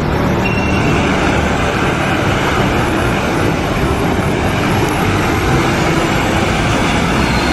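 Steady vehicle engine and road noise, a dense even rumble with no siren, starting and stopping abruptly like an edited-in sound clip.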